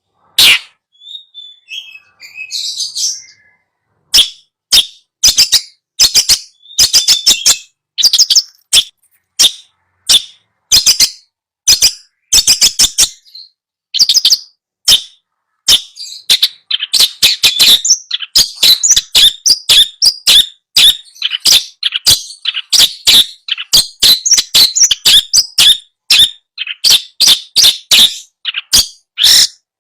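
Long-tailed shrike (cendet) song: loud, sharp, rapidly repeated calls, sparse and faint for the first few seconds, then coming thick and fast in a dense chattering run from about halfway through.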